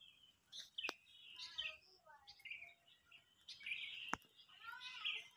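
Faint bird chirps and calls: scattered short notes rising and falling in pitch, with two faint sharp clicks.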